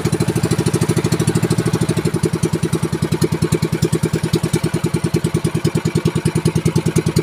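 Small inboard engine of a motorized outrigger fishing boat (banca) running steadily under way, a fast, even putter.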